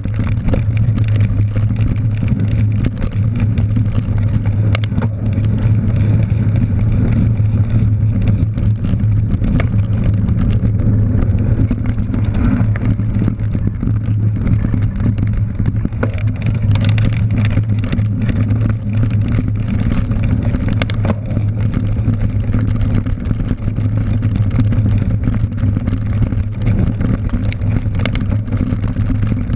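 Steady low rumble of wind and tyre noise from a cyclocross bike ridden fast over a dirt course, picked up by a handlebar-mounted GoPro, with scattered knocks and rattles from the bike over bumps.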